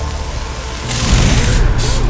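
Title-sequence sound effect: about a second in, a loud hiss starts over a steady low hum, following music with low notes.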